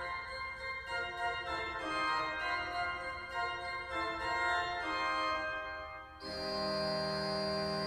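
Pipe organ played on its manuals, a passage of shifting chords and notes. About six seconds in, the sound switches abruptly to a steady, sustained chord.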